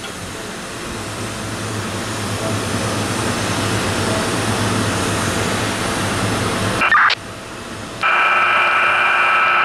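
Baofeng UV-5R5 handheld radio on a railroad channel: a hiss of static builds for several seconds, then cuts off abruptly with a squelch crash about seven seconds in. About a second later a steady high electronic tone comes through the radio's speaker.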